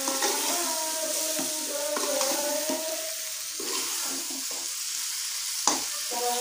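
Metal spatula stirring and scraping a sizzling mix of fried karela, chana dal and onions in an aluminium pot, with a few sharp knocks of the spatula against the pot, the sharpest near the end. A held, wavering voice from a mosque loudspeaker sounds in the background.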